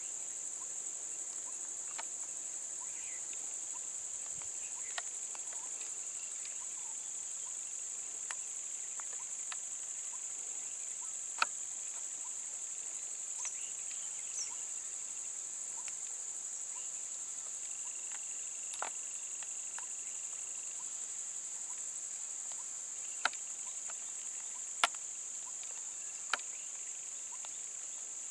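Steady high-pitched drone of insects in the roadside scrub, with a few sharp clicks scattered through it, the loudest about a third of the way in and two close together near the end.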